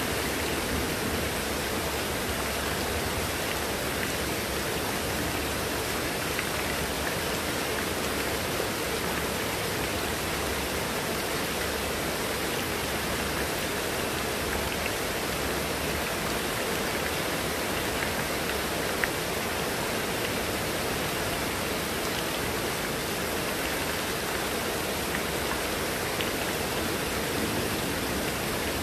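Heavy rain falling steadily on foliage and wet hard surfaces, with runoff pouring off a roof edge, an even, unbroken wash of noise.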